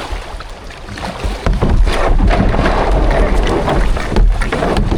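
Kayak on moving river water: water splashing and rushing with paddle strokes, and wind buffeting the microphone, getting much louder about a second and a half in.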